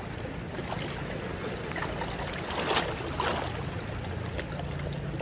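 Seawater lapping and sloshing close by, with a couple of louder splashes near the middle, over a steady low hum.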